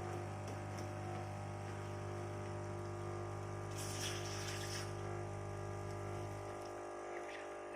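QF-CM831V Nespresso-compatible capsule coffee machine brewing: its pump runs with a steady hum as coffee flows into the cup, with a short hiss about four seconds in. The pump stops about six and a half seconds in, the end of the brew.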